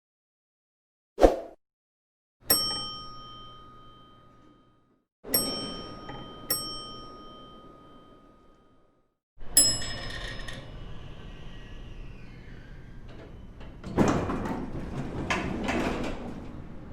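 A sequence of separate elevator sounds: a short knock, then single arrival chimes that ring out and fade (one, then two in quick succession). Then a chime followed by several seconds of rumbling door and car noise, louder near the end.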